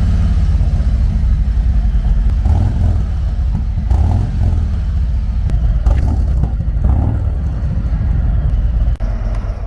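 Harley-Davidson Street Glide's Milwaukee-Eight V-twin running through freshly fitted Screamin' Eagle slip-on mufflers, just after starting. It has a little bit deeper tone, not raspy and not too loud, and is shut off about nine seconds in.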